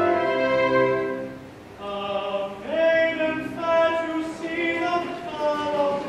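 A theatre pit orchestra with strings plays a phrase that dies away about a second and a half in. Then a man starts singing an operetta melody with the orchestra accompanying.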